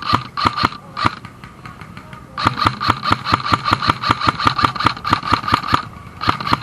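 Airsoft gun firing on full auto in rapid bursts, about seven or eight shots a second: a short burst at the start, a pause of over a second, a long burst of about three seconds, then another short burst near the end.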